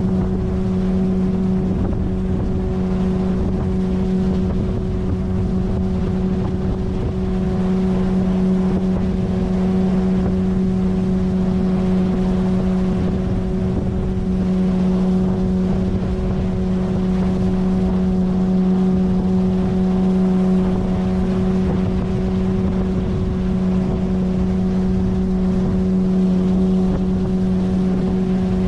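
9.8 hp outboard motor running at a steady cruising speed as it pushes an inflatable boat, with an unchanging hum over a low rush of wind and water.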